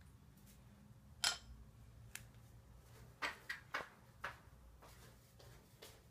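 A handful of short, light clicks and taps, the sharpest about a second in and a quick cluster a couple of seconds later, over a faint low hum.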